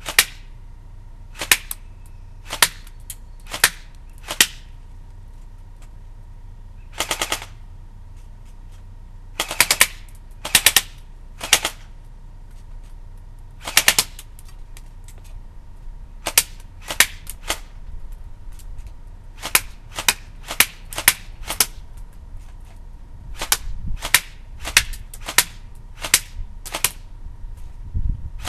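CYMA AK-47 electric airsoft gun firing, mixing single semi-auto shots with short full-auto bursts, separated by pauses of one to several seconds.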